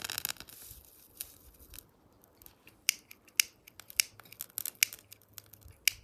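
Dry grass tinder rustling and crackling as it catches fire and is pushed down into a small stainless-steel wood-burning camp stove: a short rustling hiss at the start, then sharp, irregular crackles.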